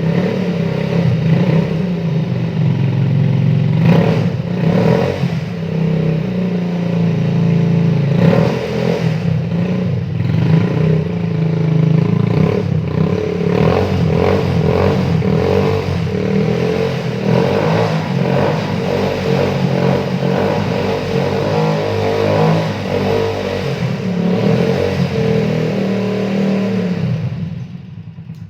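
Motorcycle engine running and being revved repeatedly through a homemade 'turbo' exhaust, the sound fading out near the end.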